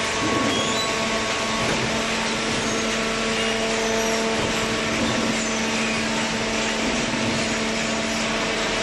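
Hydraulic baler's electric motor and pump running steadily, a constant hum over an even mechanical hiss.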